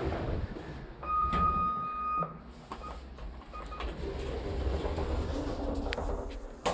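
Kone Monospace lift: a single steady beep about a second long, starting about a second in, then the car's doors sliding shut, with a sharp click near the end.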